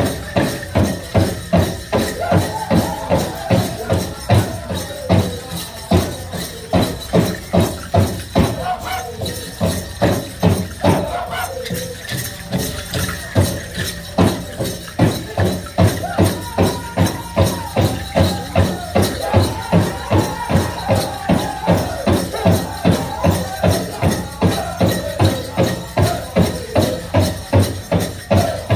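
Powwow drum group singing a contest song: a big drum struck in a steady beat by several drummers, with the singers' high voices in phrases over it that pause briefly about nine seconds in.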